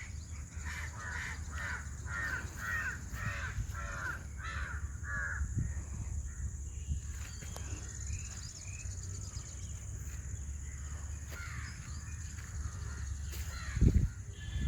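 A bird calling over and over, about ten calls at roughly two a second through the first five seconds, then a few scattered calls. A steady low rumble runs underneath, and there is a loud thump near the end.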